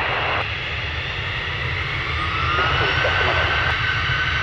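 Jet engines of an easyJet Airbus A320-family airliner running as it rolls on the runway: a steady low rumble, with an engine whine that appears about halfway through and begins to rise near the end as the engines start to spool up.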